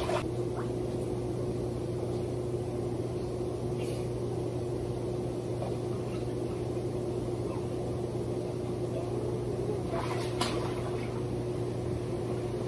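Hot tub pump motor running with a steady low hum.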